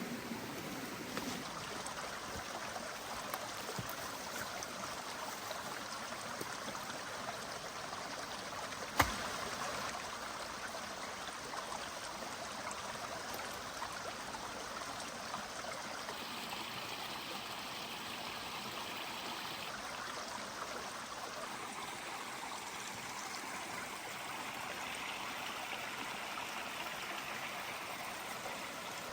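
Steady rush of running water, with one sharp click about nine seconds in.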